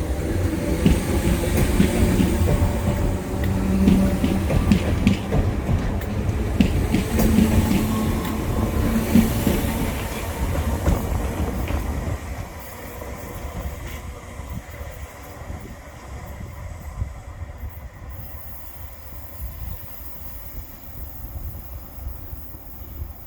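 Coupled Class 508 and Class 507 electric multiple units moving along the platform, wheels clattering, with a steady low droning tone from the brakes. Loud for about twelve seconds, then it drops away to a faint rumble.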